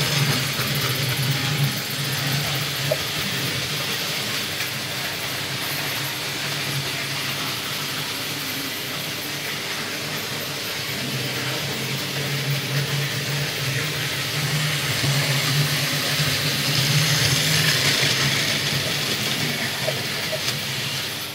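Märklin model trains running on metal track: a steady rattle of wheels on rails over a low motor hum, swelling a little as a train comes closer.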